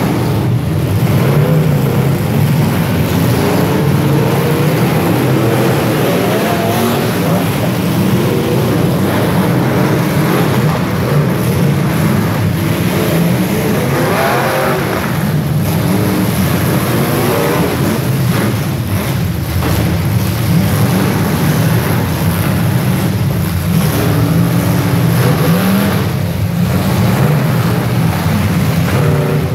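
Several demolition derby cars' engines running hard together, revving up and down again and again as the cars ram each other.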